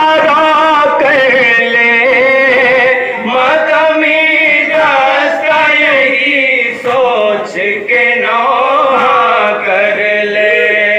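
Male voices chanting a noha, a Shia mourning lament, in a continuous melodic line with long held and sliding notes.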